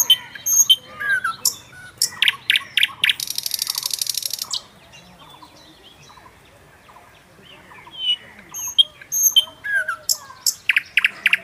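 Several birds chirping and calling in short high notes, with a fast, dry trill about three seconds in. The calls drop away for a few seconds in the middle and pick up again near the end.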